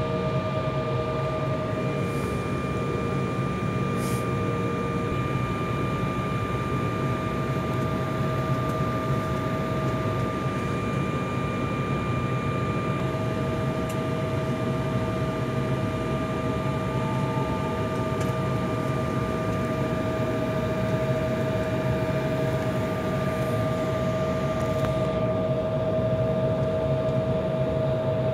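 Steady cabin noise of a jet airliner taxiing: the engines running at idle with the cabin ventilation, a low hum under a steady high whine.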